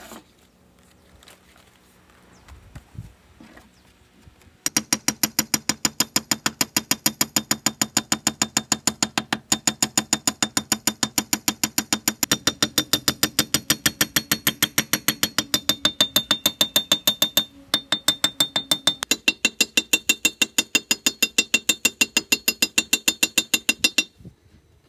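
Ratchet wrench clicking rapidly and evenly, several clicks a second. It starts a few seconds in, breaks off briefly, and stops shortly before the end.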